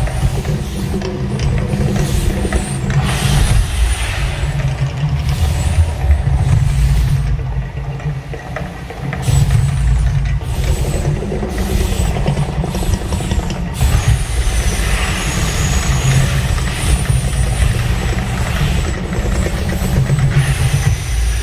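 Mirage volcano show eruption effects: a loud, deep rumbling that swells and eases, with occasional hissing bursts.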